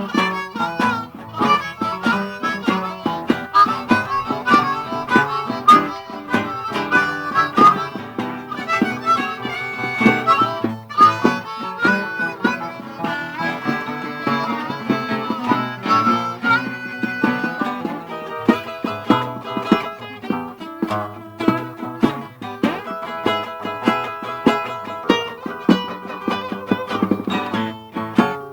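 Live blues band jamming instrumentally: a harmonica plays over guitar accompaniment with a steady beat.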